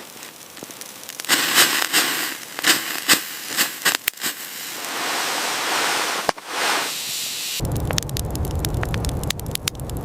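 A fire crackling: a string of sharp snaps and pops, then a steady rushing hiss, then from about three-quarters of the way in a dense crackle with a low rumble underneath.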